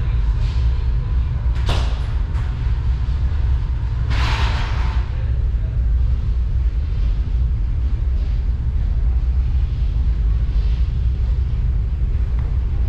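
Steady low rumble of a large ferry's machinery heard on board. A sharp click comes near two seconds in, and a short hiss about four seconds in.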